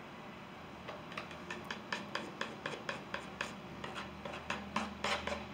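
Steel palette knife dabbing and scraping thick oil paint onto a stretched canvas: a quick run of short taps and scrapes, about four or five a second, starting about a second in.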